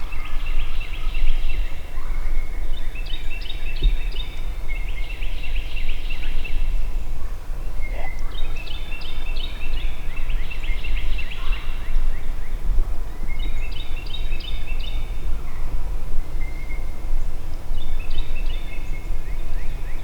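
Wild turkeys gobbling: about five rattling calls spaced a few seconds apart, with other birds calling between them. Under them runs a steady low rumble.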